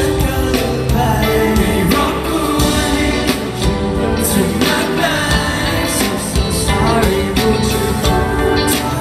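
Live pop band music with singing, played loud through the stage sound system.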